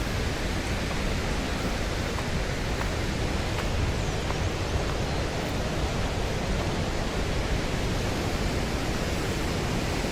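The fast-flowing Parvati river rushing over its rocky bed: a steady, unbroken sound of water.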